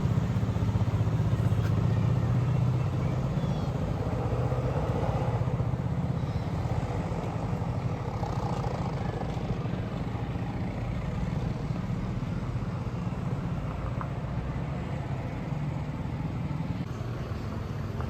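Low, steady rumble of vehicle engines in roadside traffic, easing off gradually after about three seconds.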